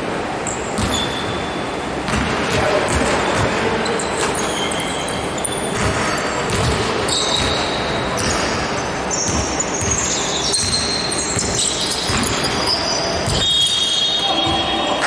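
A basketball game in play: the ball bouncing on the court and basketball shoes squeaking on the floor. The short high squeaks come thick and fast in the second half.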